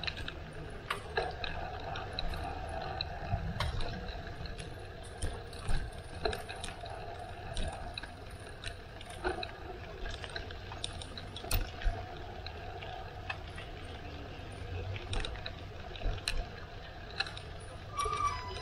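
Bicycle rattling, with many irregular sharp clicks over a steady low rumble.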